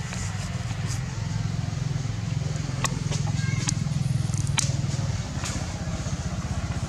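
A steady low rumble like an engine idling, with a rapid fine pulse, and a few sharp clicks between about three and five seconds in.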